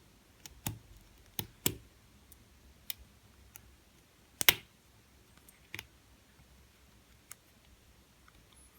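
Lock pick and tension wrench working the pins of a JJ80 challenge lock during single pin picking: a scattering of irregular sharp metal clicks, the loudest about halfway through.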